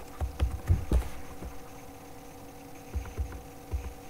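Computer keyboard typing: two short runs of keystrokes, heard mostly as dull thumps and clicks, over a steady electrical hum.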